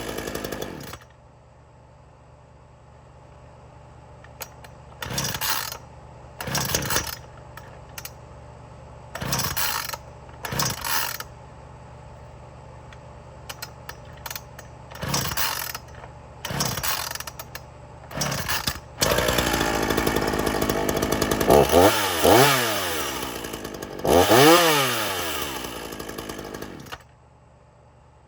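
Gas chainsaw idling, blipped with short throttle bursts about eight times. Then it is held at higher speed for several seconds with two rev-ups, and it is shut off shortly before the end.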